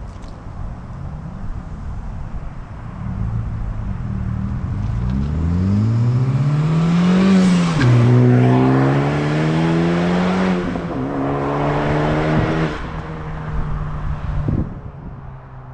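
2020 Honda Civic Type R's turbocharged 2.0-litre four-cylinder engine, exhaust with muffler and resonator deleted, accelerating hard: the pitch climbs, drops at a gear change about 8 seconds in, climbs again and drops at a second shift about 11 seconds in, then the engine eases off near the end.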